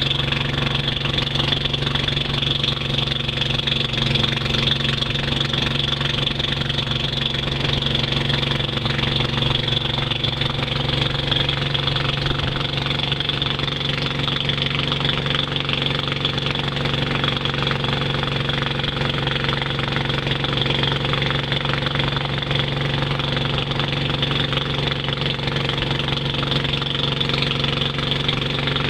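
Long-tail boat's engine running steadily under way at a constant pitch.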